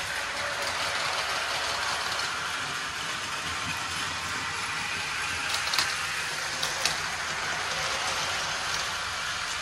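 Battery-powered Plarail toy trains running on plastic track: the steady whir of their small motors and gears with the wheels rattling over the track. Two sharp clicks about a second apart a little past halfway.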